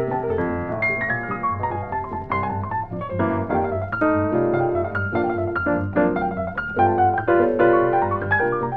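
Piano music with a quick melody over a steady low left-hand pulse.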